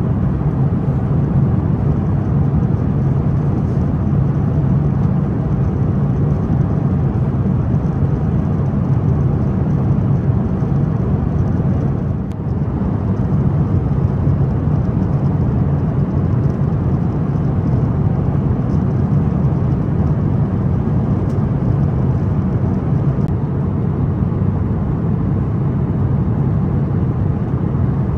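Steady cabin noise of an Airbus A350-1000 in flight: the even rush of air and engine drone heard from an economy seat, dipping briefly about twelve seconds in.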